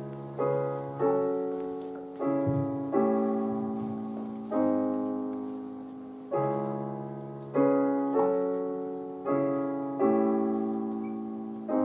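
Slow piano chords struck about once a second, each left to ring and fade before the next: the piano introduction to a song.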